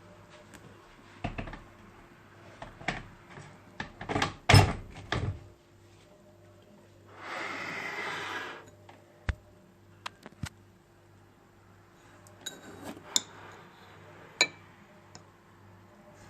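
Coffee being made by hand: cups, utensils and containers knocked and clattered together over the first few seconds, then a steady hiss lasting about a second and a half, followed by scattered light clicks and clinks.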